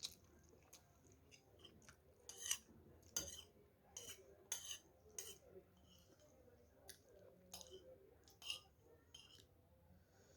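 Spoon and fork clinking and scraping on a plate while eating fried noodles: a string of short, irregular clicks, the loudest about two and a half and three seconds in.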